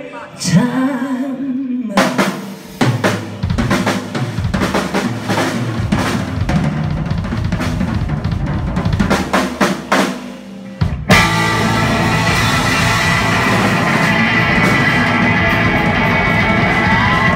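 Live rock drum kit playing a run of solo fills on the snare, toms and bass drum, then about eleven seconds in the whole band comes crashing in on a loud, held final chord with the cymbals ringing: the song's big finish.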